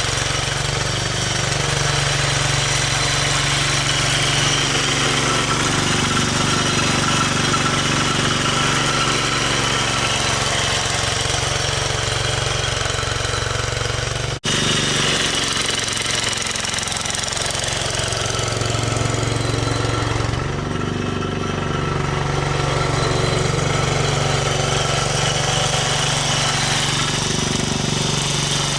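Engine of a snow-removal machine running steadily with a chugging beat. The sound drops out for an instant about halfway, and the engine note shifts around two-thirds of the way through before settling again.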